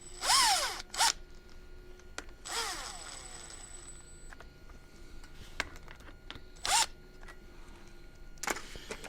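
Cordless drill-driver running in several short bursts, its pitch dropping as it winds down after each squeeze of the trigger, with small clicks between, as it snugs up the small locking-hub retaining bolts just to take up the slack.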